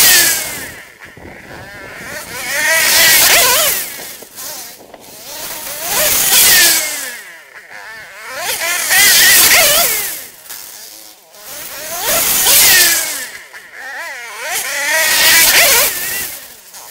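1991 Honda CR250's two-stroke single-cylinder engine revving up and dropping back about every three seconds, its pitch climbing and falling with each burst of throttle as the dirt bike is ridden.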